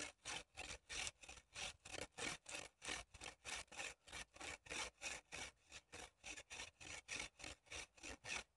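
Bark being scraped off a wooden stick as it is pulled back and forth against a knife blade fixed in a tree trunk: short, even scraping strokes, about four a second.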